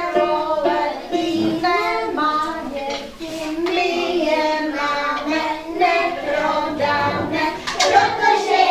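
Children's voices singing a slow Czech song, with held notes that glide between pitches.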